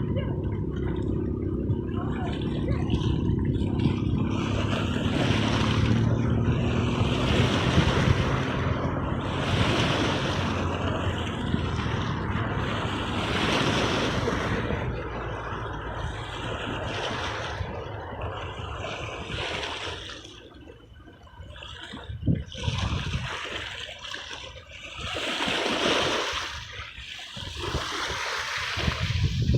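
Sea waves washing in and breaking, swelling every few seconds, with a low rumble under them in the first third. The surf drops to quieter lulls about two-thirds through before building again.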